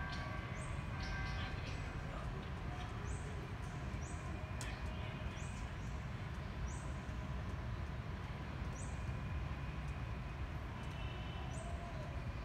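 Steady low rumbling background noise, even throughout, with no call from the animal.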